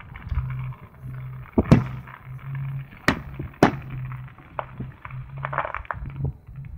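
Aerial fireworks bursting: three sharp loud bangs through the middle, the last two about half a second apart, with fainter pops and crackles between them.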